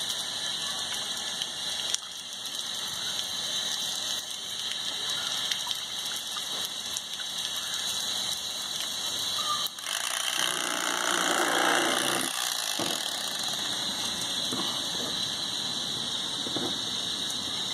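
Tap water running from a sink faucet over fish pieces being rinsed, a steady rush. It grows louder for about two seconds near the middle.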